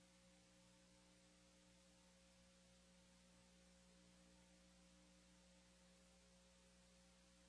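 Near silence with a faint steady hum; the collapse itself is not heard.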